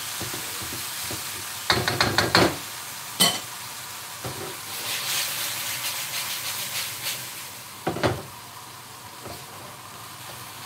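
Noodles, bean sprouts and turkey sizzling in a hot wok over a gas flame, with the sizzle swelling in the middle. Wooden utensils scrape and knock against the wok: a quick cluster of knocks about two seconds in, another about a second later, and one more near eight seconds.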